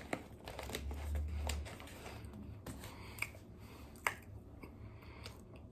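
Close-miked eating sounds: scattered wet mouth clicks and smacks while chewing, with a brief low rumble about a second in.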